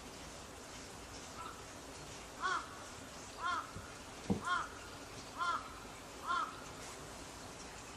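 Kitten mewing: five short, high calls about a second apart, with a soft thump midway through.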